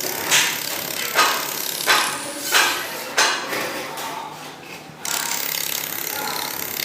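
Laser welding machine firing spot-weld pulses on sign-letter metal: five short sharp snaps about two-thirds of a second apart, over the steady hiss of the machine. The snaps stop after about three seconds, the hiss dips, and it comes back steady about five seconds in.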